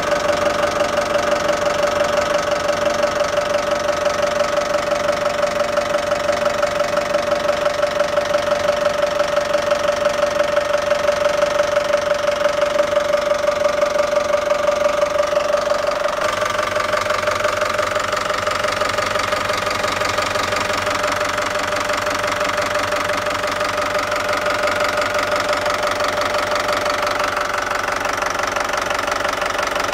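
Inboard marine diesel engine running steadily at idle, heard up close in the engine compartment, a little quieter from about halfway.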